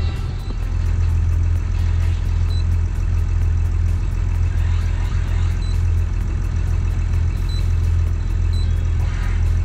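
Boat's diesel engine idling, a steady low rumble that holds evenly throughout.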